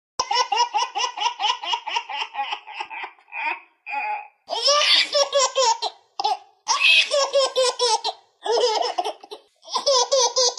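A baby laughing: a run of quick, high-pitched laughs at about five a second, then several more fits of laughter broken by short pauses.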